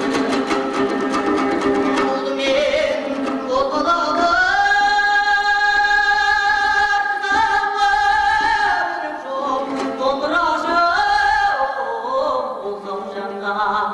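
A man singing a Kazakh song to his own strummed two-stringed dombra. Quick dombra strumming opens, then the voice climbs to a long high held note of about four seconds, followed by ornamented falling phrases over the strumming.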